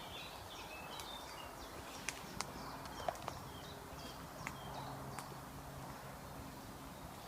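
Footsteps through woodland undergrowth, with about half a dozen sharp cracks of twigs snapping underfoot between two and five seconds in. Birds chirp faintly in the trees.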